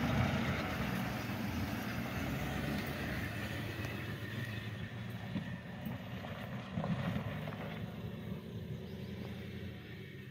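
Ford F-150 pickup truck driving off on a dirt track, its engine running steadily and growing fainter as it moves away.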